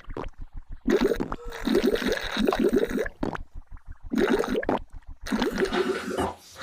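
Comic gurgling, bubbling slurp sound effect in several bursts of rapid bubbles with short gaps between them: a cartoon character drinking juice very noisily.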